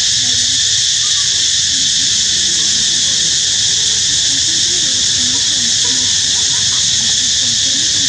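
Steady, high-pitched drone of an insect chorus, with faint wavering low calls beneath it.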